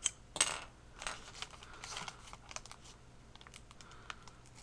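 Paper envelope crinkling as it is handled and pried open with a pen: a couple of louder crackles at the start, then a run of small ticks and rustles.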